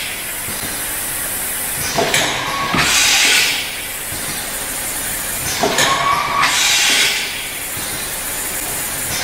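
JB QKL 250 thermoforming form-fill-seal machine running in its automatic cycle. Twice, about every four seconds, there are a few sharp mechanical knocks and then roughly a second of loud hissing air from its pneumatic stations, over a steady running noise.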